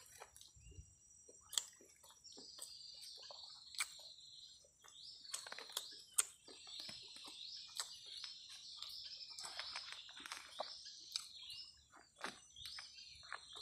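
Steady high insect buzz with repeated falling chirp calls. Scattered sharp clicks and smacks come from someone eating rice by hand from a paper wrapper.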